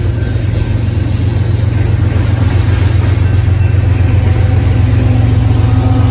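A freight train's cars rolling past, with the diesel engine of Union Pacific AC45CCTE locomotive 7367, a mid-train distributed power unit, growing louder as it approaches. A steady deep drone, with engine tones coming in near the end.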